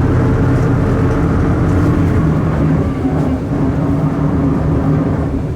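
Volksbus 17.230 OD bus under way: its MAN D0834 diesel engine running steadily with the differential growling. The pitch shifts slightly about two seconds in.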